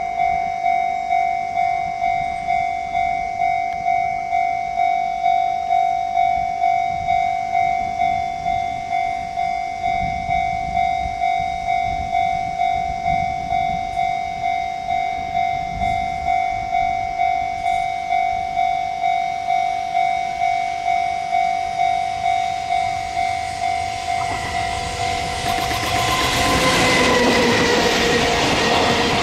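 Japanese level-crossing warning bell ringing steadily, about two strikes a second. About 25 seconds in, an approaching freight train's rumble and wheel noise swell up and overtake the bell.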